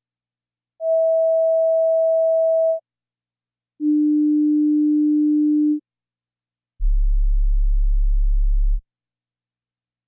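Three steady sine-wave test tones, each about two seconds long with a second of silence between, stepping down in pitch: a mid tone, a lower one, then a very low hum. They test whether the headphones or speakers can reproduce the low frequencies of heart sounds.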